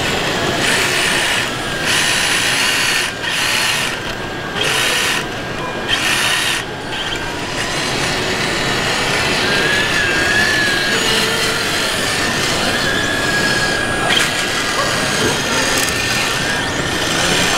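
Electric drive and hydraulic pump of a 1:14 scale RC Liebherr L574 wheel loader whirring in short spurts, about once a second, as it digs and lifts its bucket, then more steadily. The background noise of a busy hall runs underneath.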